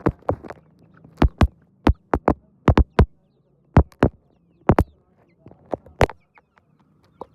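Sharp, irregular taps or knocks, two or three a second, over a faint low hum.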